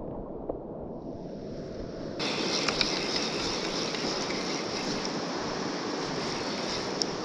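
Steady rush of a shallow, stony river, fuller and brighter from about two seconds in, with a few faint clicks.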